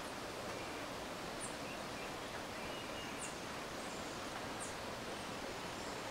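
Steady rushing of a mountain stream, with a few short, high bird chirps over it.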